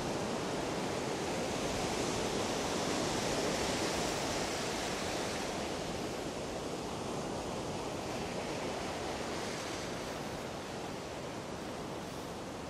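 Ocean surf washing up the beach: a steady hiss of breaking waves and foam running over wet sand, swelling slightly a few seconds in and slowly easing off.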